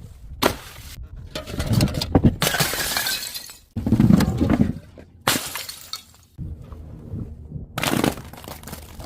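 Glass bottles smashing, one crash after another, each followed by shards clinking and scattering.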